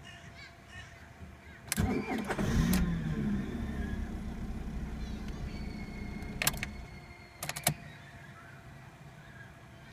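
Fiat Punto Mk2 engine cranked by the starter motor, catching after about a second; the revs flare and fall back to a steady idle, and the engine stops about seven seconds in, with a few sharp clicks around the stop. The car is one that is hard to start.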